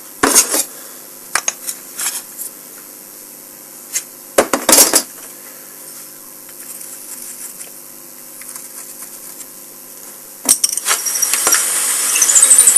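Metal tools and parts clinking and knocking on a workbench, a few sharp strikes and clatters. Near the end a power tool starts up, its whine rising.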